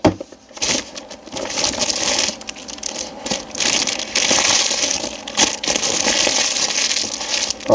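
Product box and its packaging being handled and opened by hand: a steady rustling and crinkling, dotted with small clicks and taps.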